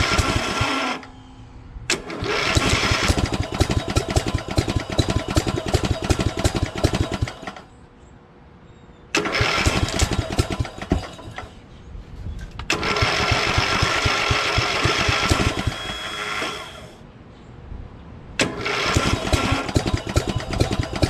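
Lawn tractor engine being cranked by its newly replaced electric starter, in repeated tries of a few seconds each with short pauses between: a starting attempt on a tractor that wouldn't start, just after a valve adjustment.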